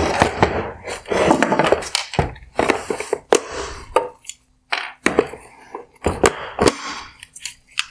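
Plastic housing of a Porsche Cayenne LED headlight being turned over and worked on a wooden workbench: irregular bursts of scraping and rattling with several sharp plastic clicks and knocks.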